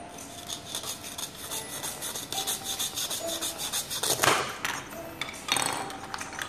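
A plastic toy knife sawing back and forth through a velcro-joined toy carrot, making a rapid scratchy rasp. The hook-and-loop fastener then rips apart with a louder tear about four seconds in, and a shorter rip follows a little later.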